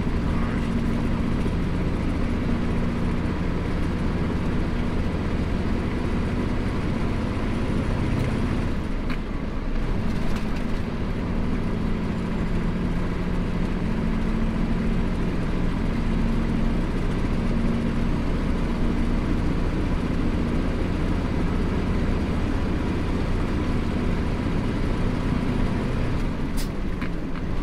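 In-cab drone of a Kenworth prime mover's Cummins 15-litre diesel engine pulling hard at highway speed, with tyre and wind noise, while overtaking another road train. The engine note dips and shifts briefly about nine to ten seconds in, then runs steady again.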